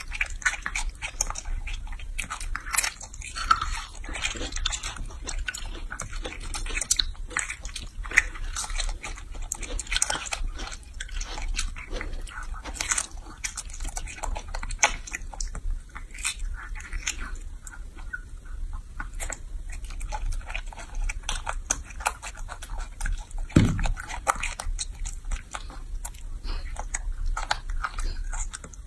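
Young macaque chewing and smacking on soft fruit, a steady run of small, irregular wet clicks, with a low steady hum underneath.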